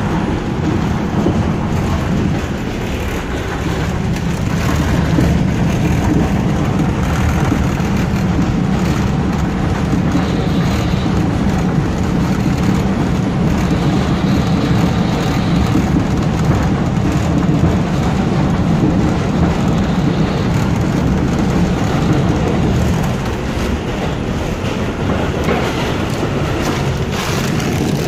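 New York City Subway R142 train running along the track: a steady rumble of wheels and motors with rail clicks. It grows louder a few seconds in and eases off near the end.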